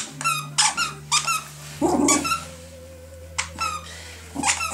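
Squeaky plush Santa toy squeaking repeatedly in quick pairs as a West Highland White Terrier bites and chews it.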